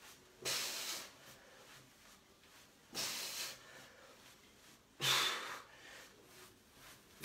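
A man breathing out hard in short, hissy puffs, three of them about two seconds apart and a fourth just at the end, from the effort of bicycle crunches.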